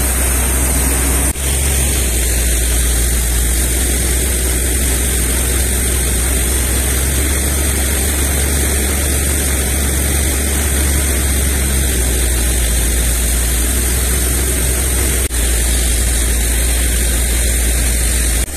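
Diesel engine of a truck-mounted water-well drilling rig running steadily under load while casing pipe is lowered to the bottom of the borehole. The drone is heavy and low, and it dips briefly twice.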